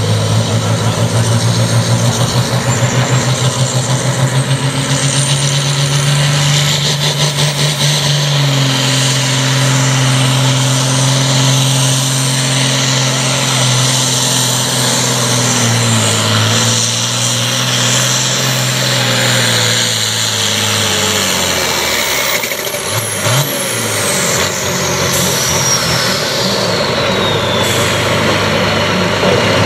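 International Harvester pulling tractor's diesel engine running hard at full throttle while dragging a weight-transfer sled, its pitch stepping lower about eight seconds in as the load builds. About twenty-two seconds in the engine note drops away, and a high whine falls slowly in pitch over the next several seconds.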